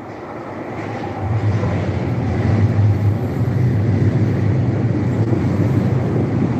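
A train approaching and passing. Its running noise grows louder over the first two to three seconds, then holds steady and loud.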